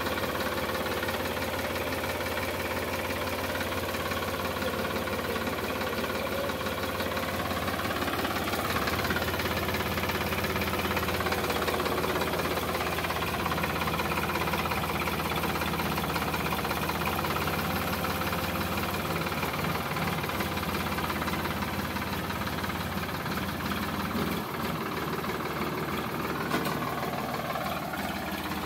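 Sonalika DI 745 tractor's diesel engine running steadily at low speed while the tractor creeps along. Its note shifts a little about eight seconds in and again near the end.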